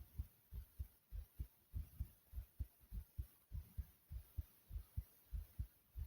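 A person's heartbeat: a quick, even run of low, dull thumps, about four a second, with faint hiss between them.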